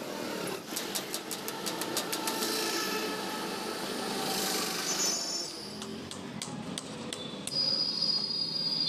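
Roadside street ambience with traffic noise, with a quick run of sharp clicks or taps in the first couple of seconds. A steady high-pitched whine comes in over it about seven and a half seconds in.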